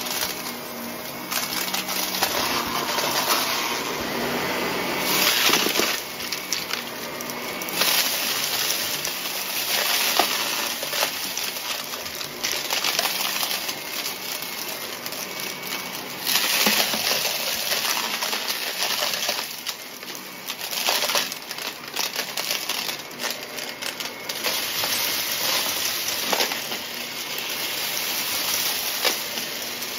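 Shark upright vacuum running over carpet, its brushroll and suction taking up small hard debris that crunches and rattles up into the machine as a dense stream of sharp clicks over the motor noise.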